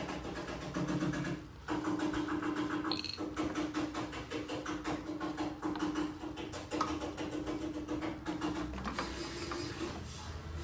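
A steady mechanical hum that breaks off briefly about a second and a half in, with light clicks and scrapes of a metal spoon against a ceramic dish and glass containers as food is served out.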